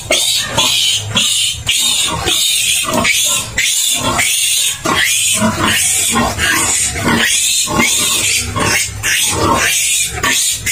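Newborn piglet squealing loudly and without pause, harsh high cries two or three a second, in distress at being restrained and injected.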